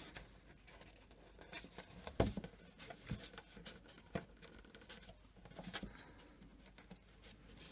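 Faint rustling and light taps of card as paper strip handles are pushed through slits in a handmade paper gift bag, with a few sharper clicks along the way.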